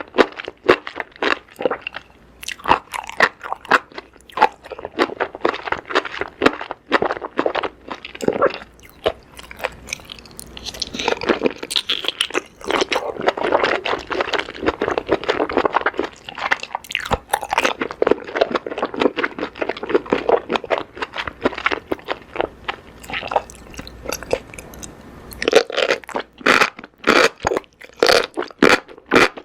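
Close-miked eating: a steady run of crunchy bites and chewing of food, heaviest in the middle and again near the end.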